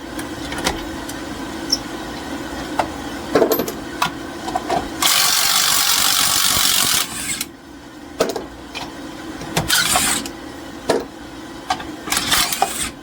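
An impact wrench spins off the loosened wheel lug nuts in a steady burst of about two and a half seconds, and again briefly near the end. Scattered clicks and knocks of metal parts being handled come between the bursts.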